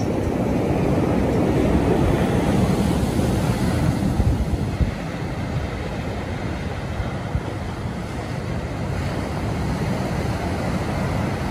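Heavy ocean surf from a distant hurricane's swell, waves breaking and washing foam over a rocky shore in a steady rush. It is loudest in the first few seconds and eases a little after about five seconds.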